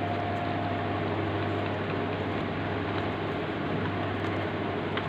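A steady mechanical hum with a constant hiss over it, unchanging in level.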